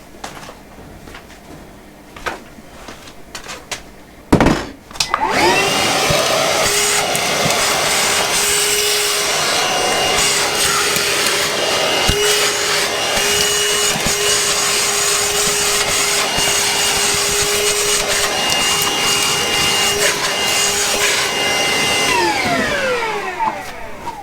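Milwaukee M18 cordless shop vac switched on about five seconds in and running steadily with a constant whine, then spinning down as it is switched off near the end. A few knocks come before it starts.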